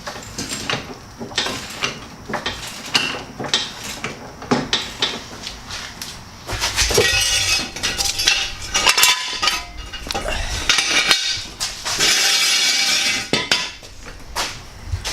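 Metal tools and parts clinking and clattering in a string of sharp knocks, with two louder, longer noisy stretches in the middle and near the end.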